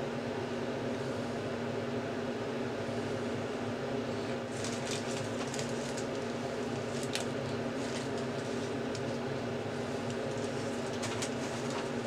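Steady electrical fan hum from bench equipment, with a scatter of short crackling ticks from about four seconds in as a soldering iron works flux and solder on a flex cable's pads.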